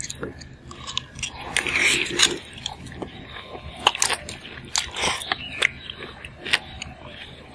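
Close-up eating sounds: chewing and biting grilled abalone topped with scallion oil and crunchy peanuts, with scattered sharp clicks as a metal fork picks at the abalone shell.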